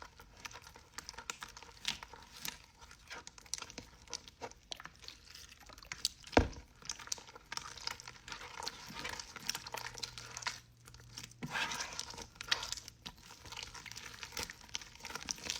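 Hands kneading and stretching old, partly dried slime as it is reactivated, making sticky crackling and clicking squishes, with one sharp pop about six seconds in.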